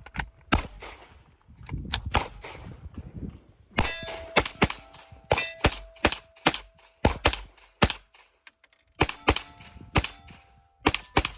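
A string of pistol shots, about twenty at an uneven pace, several fired in quick pairs, with a metallic clang and ringing after the reports.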